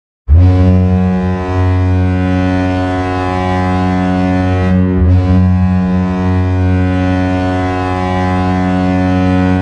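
Ice hockey goal horn blowing: a loud, deep, steady horn blast that starts abruptly, breaks off briefly about five seconds in, then sounds again.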